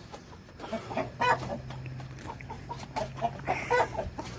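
Hens clucking in short scattered calls, the clearest about a second in and near the end.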